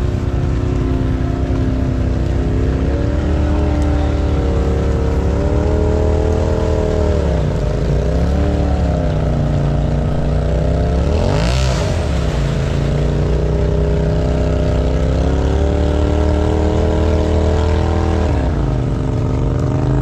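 Polaris side-by-side UTV engine running under load and revving as the machine, stuck deep in a mud hole, tries to drive out. The revs dip and climb twice in the middle, with one sharp rev about halfway through, and drop off near the end.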